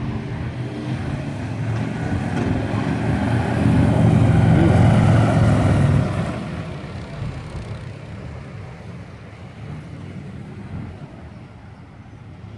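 A motor vehicle driving past, its engine noise building over the first few seconds to a loud peak, dropping off sharply about six seconds in, then fading out.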